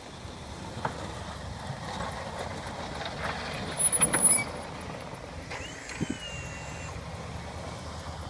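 1996 GMC Z71 pickup with a Fisher snowplow blade, its engine running steadily while plowing snow. A cluster of loud knocks comes about four seconds in, and a short squeal about six seconds in.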